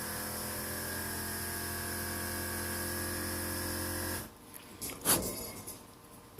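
A small electric motor running with a steady hum, cutting off about four seconds in, followed a second later by a short sharp noise.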